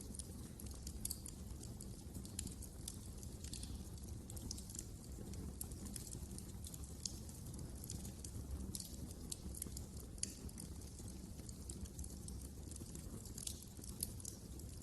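Wood fire burning in a fireplace, with a steady low rumble of flames and irregular sharp crackles and pops throughout.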